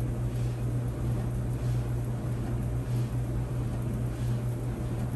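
Maytag Bravos clothes dryer running: a steady low motor hum under the even rush of the turning drum. It runs quiet, without squeaking, on a newly fitted drive belt and pulley kit.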